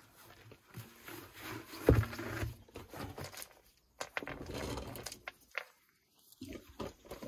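A removed car wheel and tyre rolled across gravel and laid flat, landing with a thud about two seconds in, followed by scraping and scuffing on the gravel.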